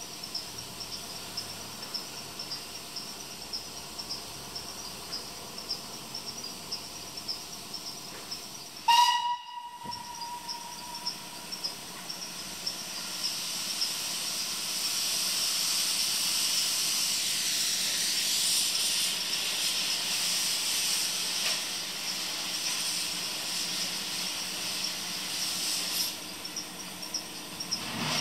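Narrow-gauge steam locomotive: one short whistle blast about nine seconds in, then a steady steam hiss that swells and holds as the engine draws slowly into the station.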